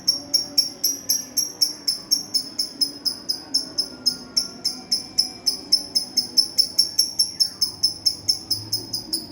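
Lovebird chattering in a long unbroken run of high, evenly repeated chirps, about four or five a second: the continuous 'konslet' style of song.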